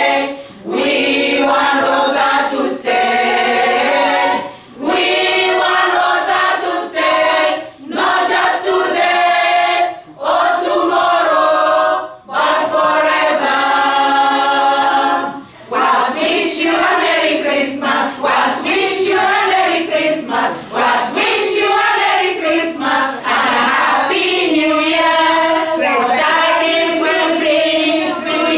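Choir of women singing together, with short breaths between phrases in the first half and unbroken singing from about halfway through.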